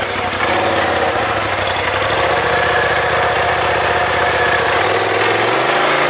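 Polaris RZR Turbo S side-by-side's turbocharged engine idling steadily, its note shifting a little before the end.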